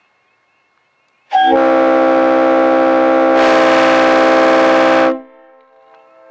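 Leslie RS-3L three-chime air horn blown in one steady chord for about four seconds, getting brighter halfway through and cutting off sharply. A faint echo of the chord lingers after it stops.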